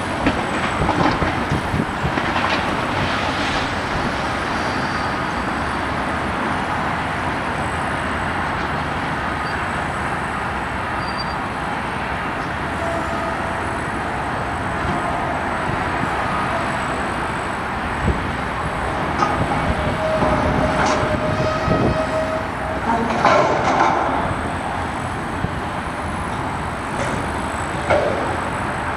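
Demolition site noise: heavy machinery running steadily, with scattered knocks and clanks of concrete and metal debris in the second half, a cluster of them a few seconds before the end, and a brief squeal partway through.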